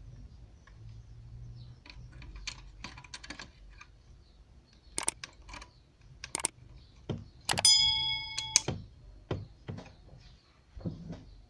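Small hand tools clicking and tapping while working on a satellite receiver's circuit board, with a short metallic ring about eight seconds in.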